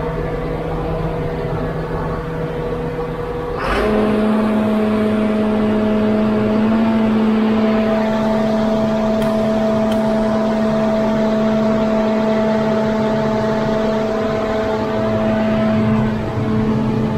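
Tractor engine running steadily while it warms up after a start. About four seconds in, a click, then the engine speed steps up and it runs faster and louder, holding that pitch.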